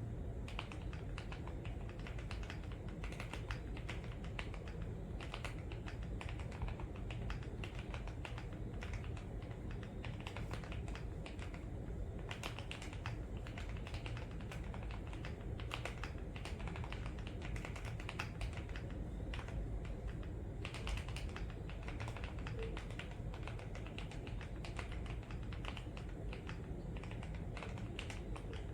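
Continuous, irregular typing on a mechanical keyboard fitted with AKKO Clear Black ASA-profile keycaps, with rapid keystroke clicks over a steady low background hum.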